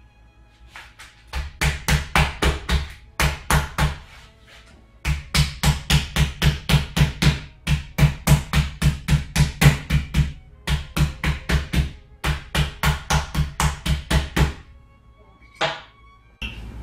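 Flat-based meat pounder striking boneless chicken breasts in a plastic zip-top bag on a stone countertop to flatten them: rapid heavy thuds at about four to five a second, in several runs with short pauses, then two single knocks near the end.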